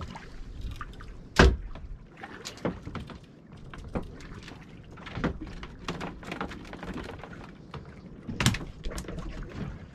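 Knocks and clatter on a small fishing boat as the catch and gear are handled. There is a loud knock about a second and a half in, another near the end, and lighter knocks between.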